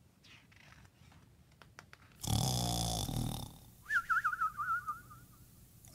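Faint paper rustle and clicks of a book page being turned, then a cartoon-style snore: one rasping snore about two seconds in, followed by a thin, wavering whistle on the out-breath.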